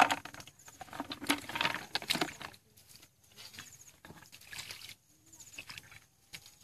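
Wet splashing and squelching as hands grab fish in shallow muddy water, loudest in the first two and a half seconds. Quieter knocks and splashes follow as the fish go into a plastic bucket.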